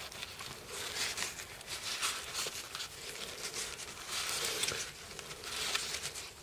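Kitchen paper towel rustling and crinkling between fingertips as a small screw is rubbed inside it, with irregular soft crackles throughout. The screw is being wiped with WD-40 to clean oxidation off its thread.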